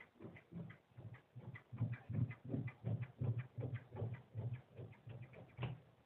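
Large tailor's shears snipping lengthwise through two layers of fabric on a cutting table, a steady run of cuts about three to four a second.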